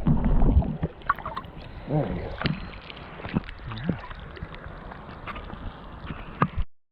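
Stream water splashing and gurgling close by as a trout is released, with scattered small clicks. A low rumble in the first second gives way to quieter water sounds, and the sound cuts off abruptly near the end.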